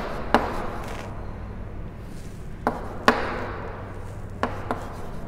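Chalk writing on a blackboard: a handful of sharp taps as the chalk strikes the board, some followed by short scratchy strokes.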